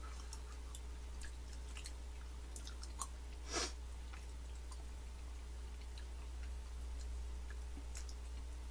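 Close-up chewing of a red velvet macaron with a cream cheese filling: soft mouth clicks and small crackles, with one louder short crunch about three and a half seconds in. A low steady hum runs underneath.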